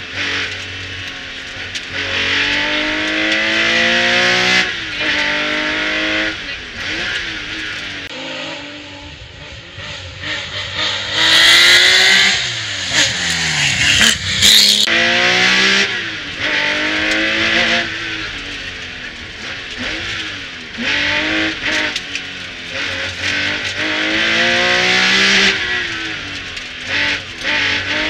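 Porsche 911 Carrera 3.0 RS Group 4 rally car's air-cooled flat-six revving hard through the gears. The pitch climbs in each gear and drops at every shift. Near the middle there is a loud stretch where the pitch falls steeply, as the car goes by.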